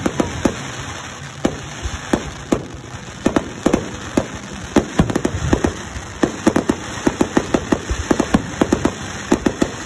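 Aerial fireworks shells bursting in irregular succession, sharp bangs with crackle between them, sparser at first and then coming thick and fast through the second half.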